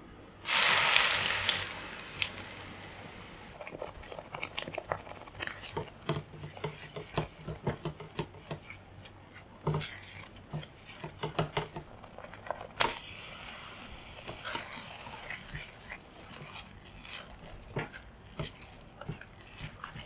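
Blended chili paste hitting hot oil in a frying pan with a loud sizzle about half a second in. After that a spatula scrapes and clicks against the pan as the paste, and later diced potatoes, are stir-fried.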